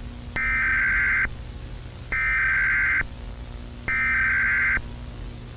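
Emergency Alert System SAME header: three one-second bursts of shrill, warbling digital data tones, about a second apart, the coded signal that opens an emergency alert broadcast.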